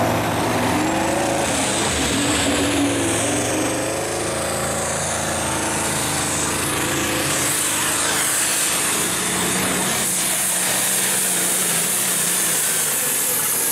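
Turbocharged diesel engine of a Light Limited Super Stock pulling tractor running at full throttle under load, its pitch rising over the first few seconds and then holding, with a high whine over the engine.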